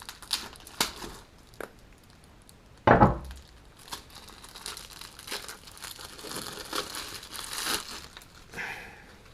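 Plastic packaging of hydrogel weight inserts being cut open with a small knife and pulled apart, crinkling and rustling, with a single thump about three seconds in.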